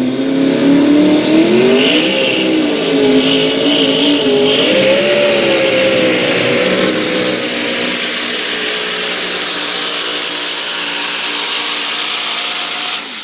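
Mini modified pulling tractor's twin-turbo racing engine at full throttle through a pull. The revs climb about a second and a half in and waver up and down for several seconds, then hold steady and high with a thin high whine over them. The engine drops off sharply right at the end as the throttle is cut.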